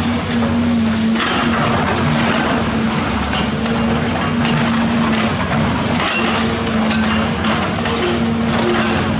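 Hydraulic excavator engine running with a steady hum under load, over irregular crunching, cracking and knocking as a building is torn down.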